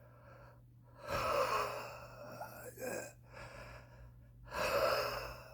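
A smoker's heavy, wheezy breathing while smoking. Two loud gasping breaths come about a second in and again near the end, with quieter breaths between.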